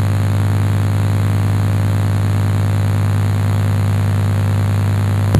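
A steady low hum, with a sharp click near the end.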